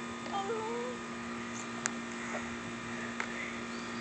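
A steady low hum, with a brief soft wavering voice sound about half a second in and a small click near two seconds.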